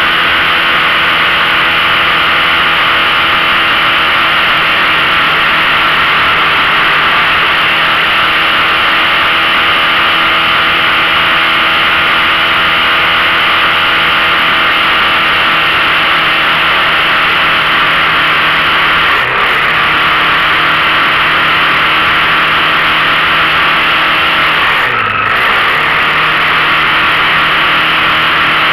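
15 hp outboard motor running steadily under load at speed, over a loud rushing hiss. Its pitch dips briefly twice, near the two-thirds mark and again toward the end.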